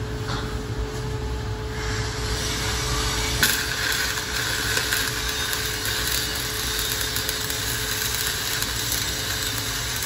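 Shielded metal arc welding with a 6010 stick electrode: the arc is struck about two seconds in, then crackles and hisses steadily. A sharp crack comes about three and a half seconds in, after which the crackle is stronger. The arc is being restruck to continue the bead after changing rods, with a faint steady hum underneath.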